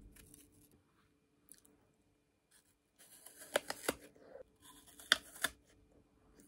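Crisp crunching of raw apple being bitten and chewed, in two bouts about three and five seconds in, each with a few sharp cracks.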